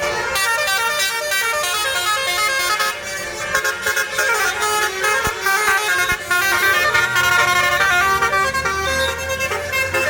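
Bus telolet basuri horn, a set of melodic air horns, playing a quick tune of stepping notes. A bus engine's low rumble joins in near the end.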